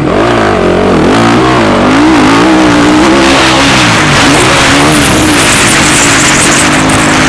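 Motocross bike engine revving hard, its pitch swinging up and down again and again as the throttle is worked. Loud and close.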